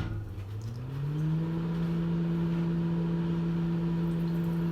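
A kitchen appliance's electric motor switches on with a click; its hum rises in pitch over about the first second as it spins up, then runs steady.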